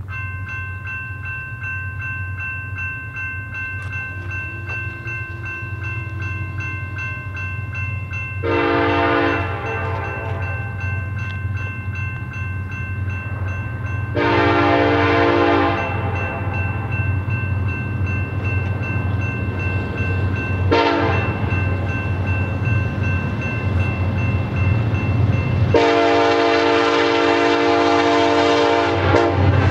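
BNSF SD70ACe diesel locomotive blowing its horn in the grade-crossing pattern as it approaches: two long blasts, a short one, then a final long blast held near the end. The diesel rumble grows steadily louder, and a crossing bell rings quickly and steadily underneath for most of the time.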